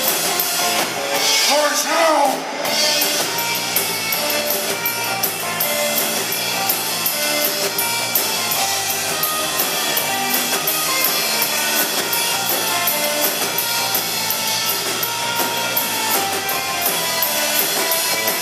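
A live rock band playing: electric guitar, electric bass and drum kit together with a steady beat.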